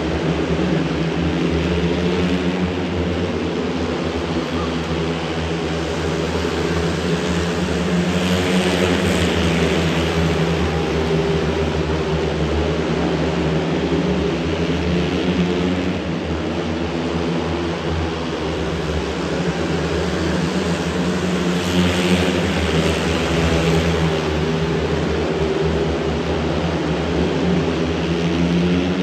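Four 500cc single-cylinder speedway bikes racing round the track, their engines making one steady, continuous drone. The sound swells twice as the pack comes past closest, about a third of the way in and again about three-quarters through.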